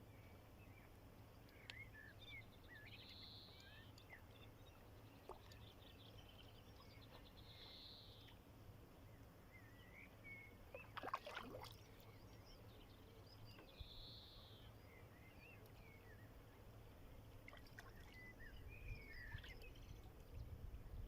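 Faint outdoor ambience at a pond: small birds chirping and warbling on and off over a low steady hum, with one short noisy sound about halfway through.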